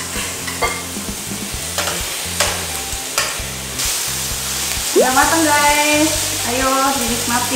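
Meat frying and sizzling in a pan on a portable gas stove, stirred and turned with metal tongs. There are a few sharp clicks, mostly in the first half, as the tongs strike the pan.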